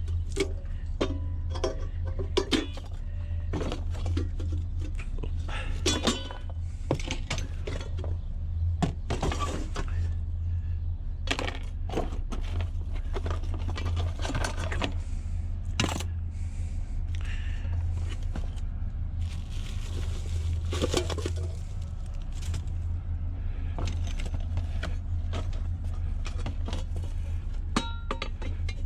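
Pieces of scrap metal being handled and loaded: irregular clanks, clinks and scrapes, some ringing briefly, over a steady low hum.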